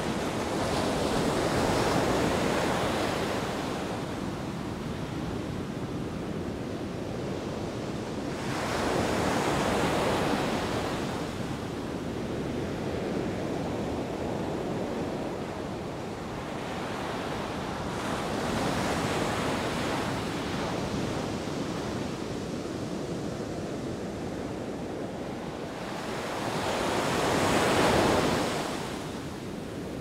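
Sea waves breaking on a beach, the surf swelling and fading about every 8 to 9 seconds over a constant wash of water.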